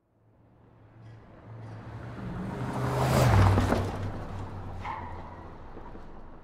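A car passing close by on the road: its noise builds up, is loudest about three seconds in, then fades away, with the low engine note dropping in pitch as it goes by.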